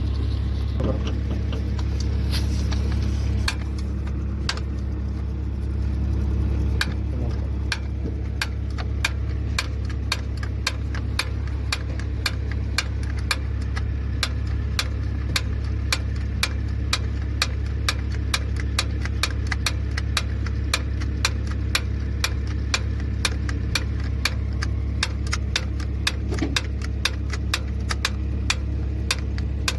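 Hand tools working on metal at the excavator's injector fuel line, giving a long run of regular sharp clicks, about three a second, over a steady low machine hum.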